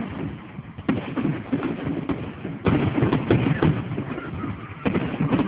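Fireworks going off: three sudden bursts, about a second in, near the middle and near the end, each followed by a run of crackling.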